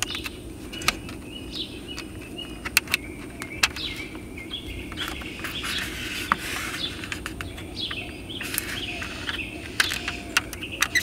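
Scattered sharp clicks and crinkles of a thin plastic screen-protector film being handled and pressed onto a car's touchscreen. Short bird chirps come and go over a steady low hum.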